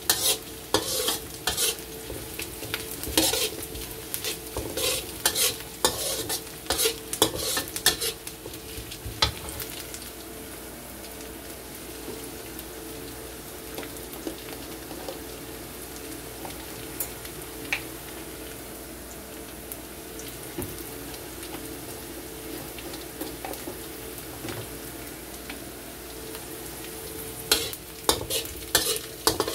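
Sliced shallots and garlic sizzling as they are sautéed in a wok, with a spatula scraping and clacking against the wok as they are stirred. The scraping is frequent for the first several seconds and again near the end; in between, a steady, quieter sizzle.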